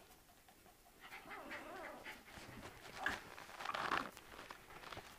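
A pet dog panting and whining softly, with a wavering whine about a second in and short breathy puffs around three and four seconds in.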